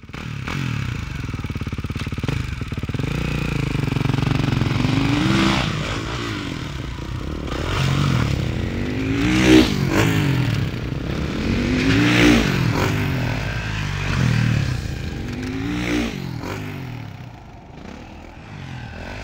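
Dirt bike engine revving hard in repeated surges, the pitch climbing and falling about four times, as the bike is ridden at and launched off jumps.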